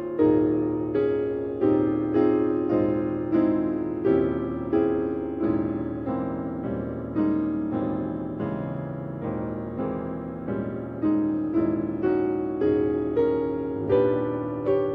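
Jazz piano playing a slow ballad, striking full chords at an even pace, each left to ring and fade before the next.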